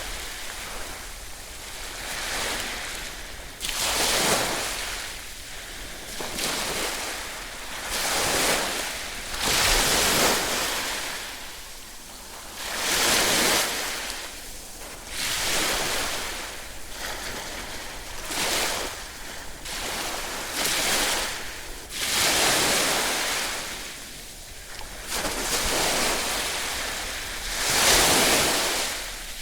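Ocean waves breaking and washing on the shore, each wave swelling to a rush and falling back every few seconds.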